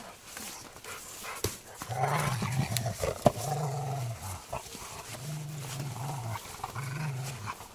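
Rottweiler growling in a run of low growls, each under a second long, starting about two seconds in, while he tugs at a rubber tyre in play. A single sharp knock sounds about three seconds in.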